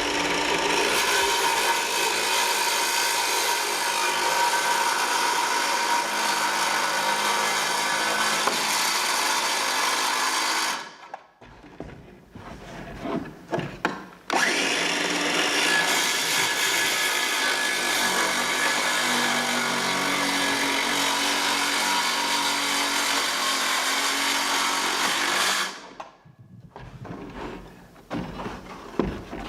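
A power tool working wood, its motor running steadily under load for about ten seconds, stopping, then spinning up again for another run of similar length before stopping near the end.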